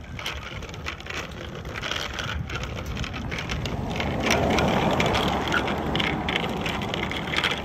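Wind rushing over a phone's microphone while riding a bicycle, with the rumble and light rattling of bicycle tyres rolling on asphalt. The wind swells loudest about halfway through.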